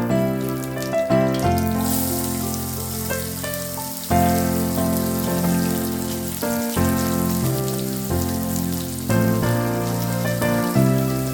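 Background music of sustained keyboard chords, changing every second or two, over a steady hiss like food frying in oil.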